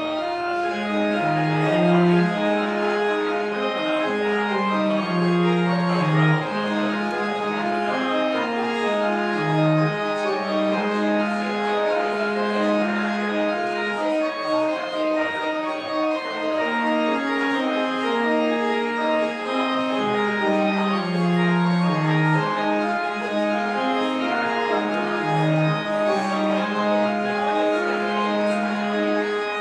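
Church organ playing the postlude: sustained chords over a slowly moving bass line, with one high note held through most of the passage.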